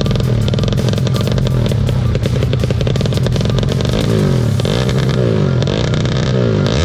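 Motorcycle engine running with a rattling clatter. About four seconds in, horn tones sliding up and down join it, from a telolet horn fitted to the motorcycle.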